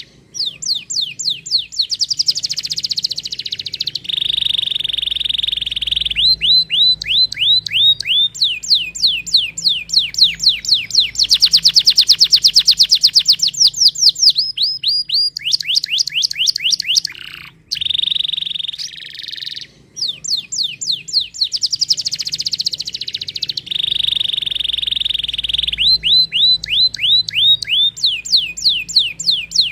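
Domestic canary singing a continuous song of rapid trills, each made of quick falling sweeps, alternating with held buzzy rolls. There are brief breaks near the middle, after which the same run of phrases starts over.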